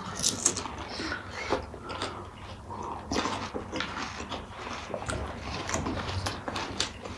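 Pani puri being chewed close to the microphone: irregular crunches of the crisp hollow puri shells and wet chewing clicks, from two people eating at once.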